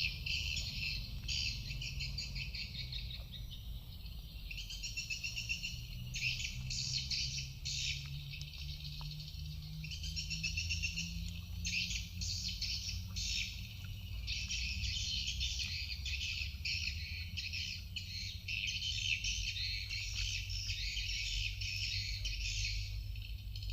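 A chorus of high-pitched chirping and trilling, coming in bursts of a second or so with short gaps, over a low steady rumble.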